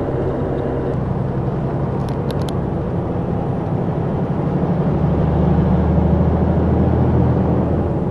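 Steady drone of a truck's engine and road noise heard inside the cab. The deep engine tones strengthen about five seconds in, and a few quick faint ticks come about two seconds in.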